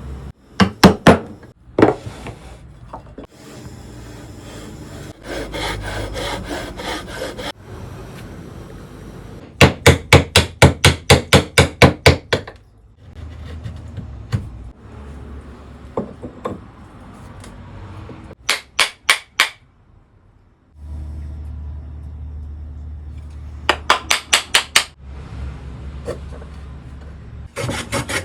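Woodworking hand tool work: quick runs of sharp knocks on wood, about four strikes a second, the longest run a dozen strikes, with stretches of scraping or rubbing on wood between the runs.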